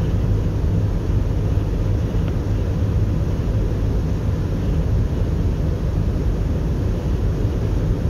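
Steady low rumble of a moving car, engine and tyre road noise heard from inside the cabin while driving.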